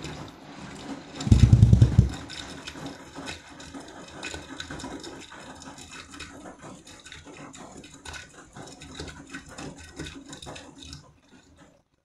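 Beko washing machine drum turning during a sudsy rinse on its Dark Care programme: water sloshing and splashing against the door glass with the clothes tumbling, stopping near the end as the drum comes to rest. A heavy low thump about a second and a half in is the loudest sound.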